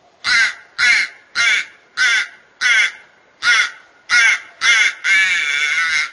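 Crow making a strange noise: eight short caws in a quick, even series, about two a second, then one longer drawn-out call near the end.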